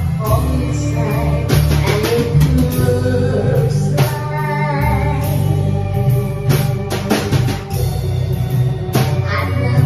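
A woman singing through a microphone and PA over amplified backing music, with a live drum kit played along.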